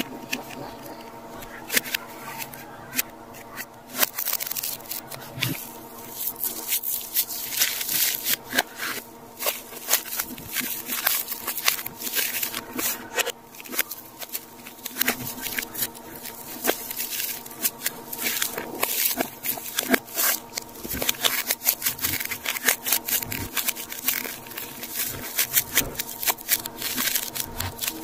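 Plastic shrink wrap and clear blister packaging crinkling and crackling as they are handled and cut open, with irregular scrapes and clicks.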